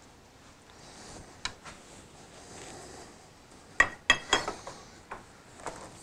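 27 mm metal spanner clinking against the aluminium fork top cap as it is fitted over the cap and turned to tighten it: a few scattered clicks, then a quick cluster of sharp metallic clinks about four seconds in.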